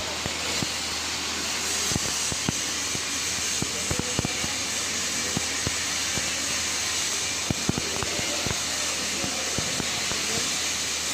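Electric arc welding in progress: the arc gives a steady hiss broken by irregular crackles and pops, over a low steady hum.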